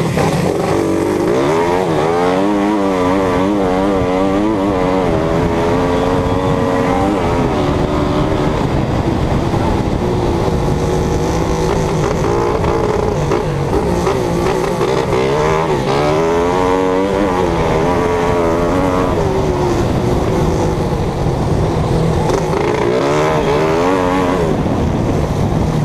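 Racing vehicle's engine running hard, close to the microphone, its pitch rising and falling repeatedly with throttle and gear changes over a steady rushing noise.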